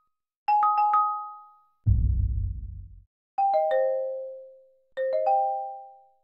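Windows speaker-test chimes stepping through a 7.1 surround layout: three quick three-note ding chimes, each ringing out, with a short low rumble for the subwoofer channel about two seconds in.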